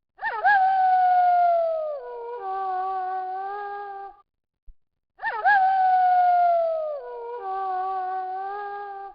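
Wolf howling, twice, the same howl repeating about five seconds apart: each opens with a quick upward flick into a long held note that sinks in pitch near its end, then runs straight into a second, steadier and lower note before breaking off.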